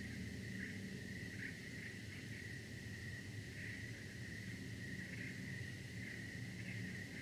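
Crickets trilling in a steady, unbroken high chorus, over a low steady hum.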